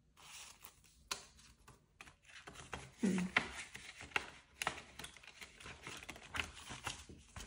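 Handling paper money and a ring-bound cash binder: bills and plastic pockets rustling and pages being turned, with a run of light clicks and taps, the loudest about three seconds in.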